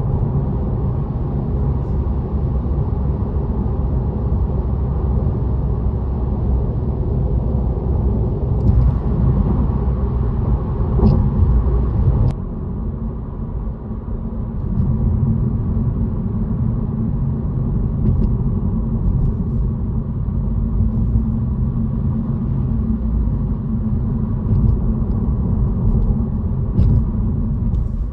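Steady low rumble of road and tyre noise with engine sound inside a moving car's cabin. It quietens briefly about twelve seconds in, then returns.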